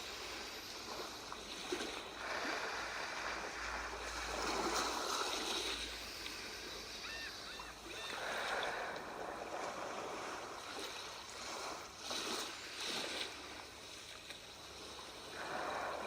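Sea waves washing ashore, swelling and receding in slow surges every few seconds, with three faint short chirps near the middle.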